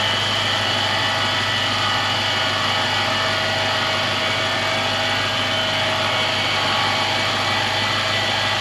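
Toyota 3UZ-FE 4.3-litre V8 idling steadily with a constant whine. The whine comes from a worn pulley bearing in the accessory belt drive.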